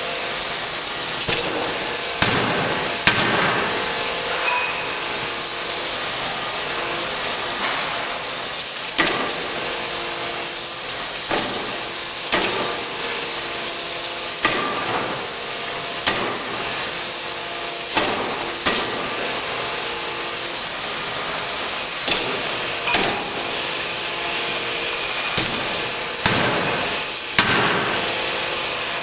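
3-ton hydraulic closed die forging hammer striking a workpiece: about a dozen sharp, heavy blows at irregular intervals of one to several seconds, over a steady hiss.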